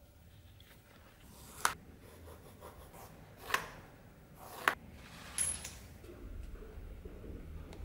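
Tools being handled on a workbench while leather is marked out: four sharp clacks spread over a few seconds, the last with a brief high metallic ring, then faint rubbing.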